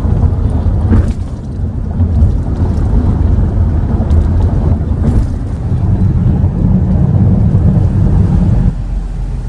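Low, uneven rumble of a vehicle on the move, with wind buffeting the microphone.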